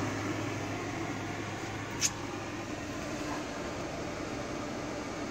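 A steady mechanical hum, like a machine's motor running, with one sharp click about two seconds in.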